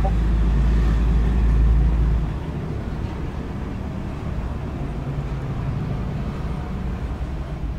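A steady low rumble of background noise that drops away about two seconds in, leaving a softer hiss and faint hum.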